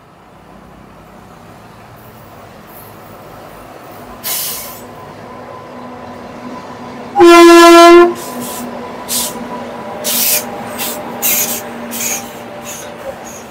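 Indian Railways WAG-9 electric locomotive hauling loaded coal wagons up a grade, its running hum building as it nears; about seven seconds in it sounds one loud horn blast of under a second. As the wagons roll past, short bursts of wheel and wagon clatter follow one another.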